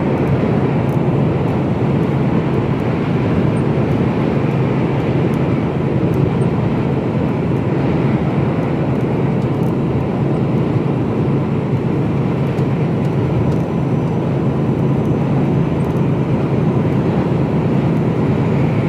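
Mercedes-Benz Actros lorry cruising at motorway speed, heard from inside the cab: a steady, even diesel engine drone with tyre and road noise.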